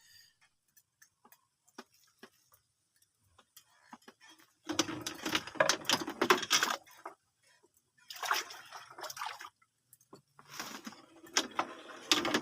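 Water splashing and sloshing in three bursts of a second or two each, after a few seconds of faint scattered ticks.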